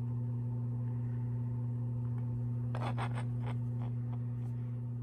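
A steady low electrical hum with overtones, and a few faint light clicks and scrapes about three seconds in.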